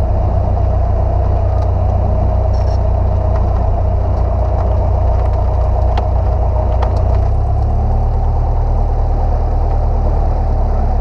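Single-engine piston airplane's engine and propeller droning steadily, heard from inside the cabin, with a slight change in its low hum about seven and a half seconds in.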